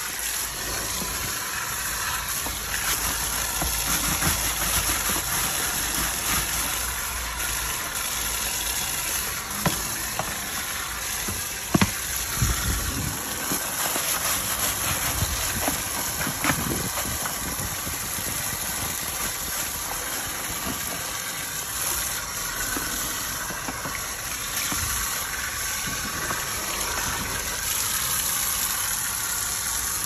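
Steady hiss of a water jet spraying and splashing over a plastic water-tank filter basket as it is washed out, with a motor-like hum underneath. Two sharp knocks stand out, a little before and a little after the middle.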